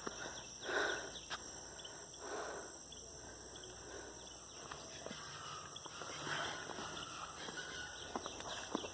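Steady high-pitched chorus of insects, with a few soft rustling sounds.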